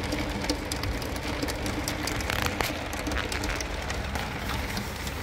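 Hail pattering on a camper truck's window and body, heard from inside: a dense run of small, irregular ticks over a steady hiss.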